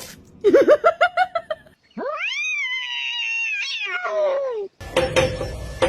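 A cat making a quick string of short chirping calls, then one long yowl that rises, holds and falls away. Near the end, rapid regular knocking begins.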